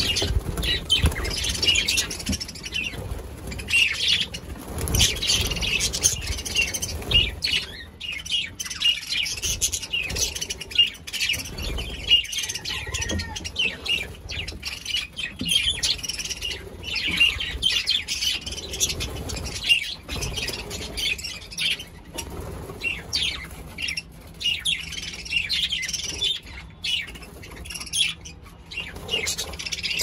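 A flock of budgerigars chirping and warbling continuously, with occasional wing flaps and small knocks from a wooden nest box being handled.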